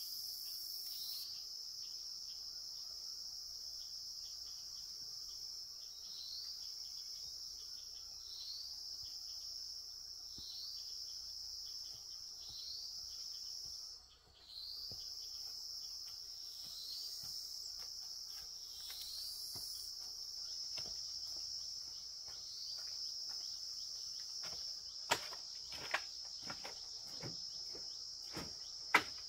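Insects droning steadily at a high pitch, the sound swelling up every couple of seconds and dropping out briefly about halfway. A few sharp knocks come near the end.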